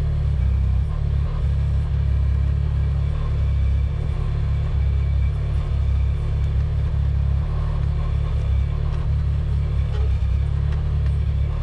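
Mini excavator engine running steadily under working load with a deep, even rumble, a few faint clicks and knocks from the digging over it.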